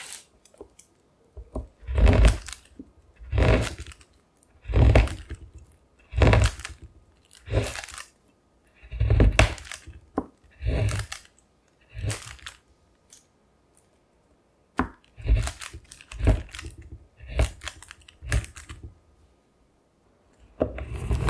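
A large kitchen knife chopping a bar of dark chocolate on parchment over a wooden cutting board: each stroke is a crisp crack of the chocolate with a knock of the blade on the board. The strokes come about one every second and a half, then faster in the second half, with a short pause near the end.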